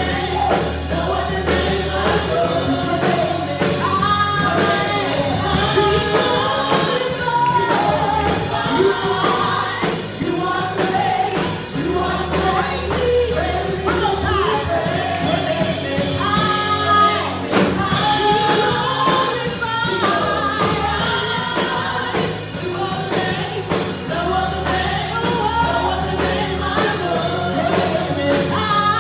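Live gospel praise music: voices singing together over a full band with steady bass, played loud and continuously.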